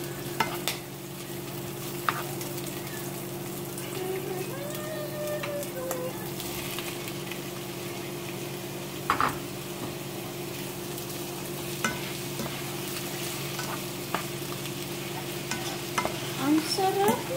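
Onions and jackfruit chunks frying in oil in a nonstick pan with a steady sizzle. They are stirred with a plastic spatula, which gives a few sharp knocks and scrapes against the pan.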